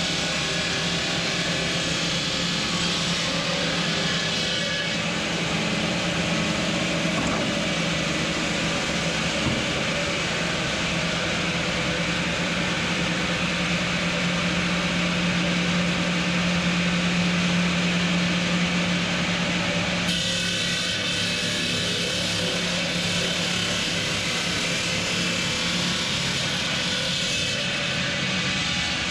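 Marble-cutting machinery running steadily: a constant low hum under a grinding hiss, the mix shifting abruptly about five and twenty seconds in.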